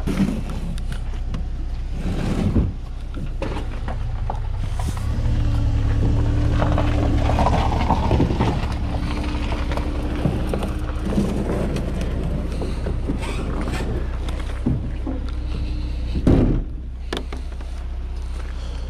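Plastic kayak hull being shifted and dragged on a car roof: scraping and rubbing with a low groaning tone for several seconds mid-way, and hollow knocks about two and a half seconds in and near the end, the last the loudest. A steady low rumble runs underneath.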